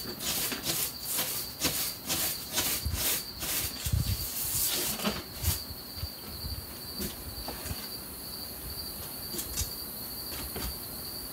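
Stiff-bristled broom scraping dirt and debris off an old wooden window sill and frame, in quick strokes about three a second for the first five seconds or so, then a few scattered scrapes and taps. A steady high insect drone runs underneath.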